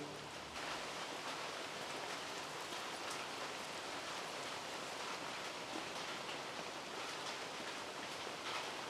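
Steady hiss of monsoon rain falling, with a few faint clicks.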